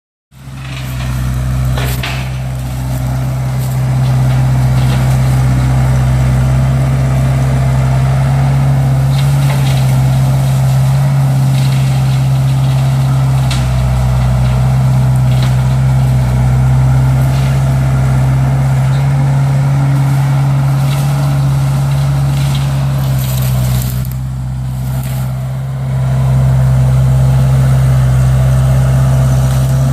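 Case 1845C skid steer's diesel engine running steadily under load while its hydraulic brush cutter works through brush, with scattered sharp cracks and snaps of wood being cut. The engine eases off for a couple of seconds near the end, then comes back up.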